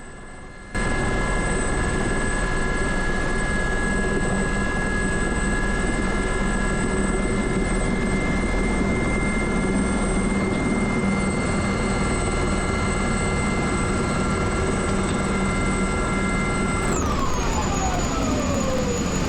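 Aérospatiale Gazelle helicopter running, its Turbomeca Astazou turbine and rotors making a loud steady whine with several fixed tones. The sound cuts in just under a second in, and about three seconds before the end the whine falls steadily in pitch.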